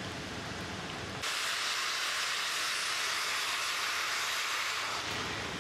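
Loud hiss of pressurised gas being released at a natural gas compressor station. It starts abruptly about a second in and eases off about four seconds later, over the station's steady background noise.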